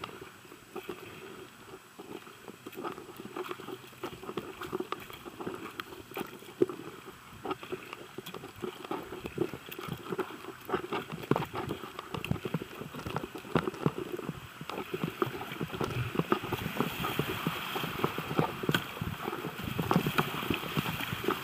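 Kayak paddle strokes, with water splashing and many small knocks and clicks. The kayak runs into a riffle, and the rush of broken water grows steadily louder, with splashing against the hull in the last few seconds.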